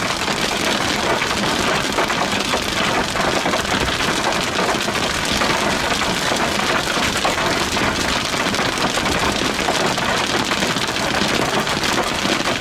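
Heavy rain from a tornado-warned thunderstorm pelting steadily against a vehicle.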